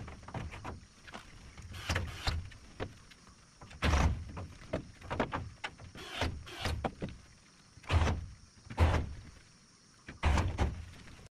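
Irregular knocks and thuds of timber on timber, about one every second or so, as long wooden rails are handled and knocked into place on a wooden-floored shed wall.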